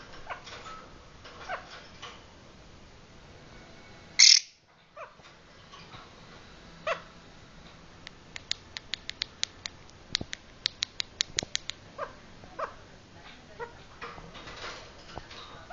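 Pet lovebird making an odd noise: one loud, short, shrill squawk about four seconds in, then a fast run of sharp clicks from about eight to twelve seconds, with soft chirps in between.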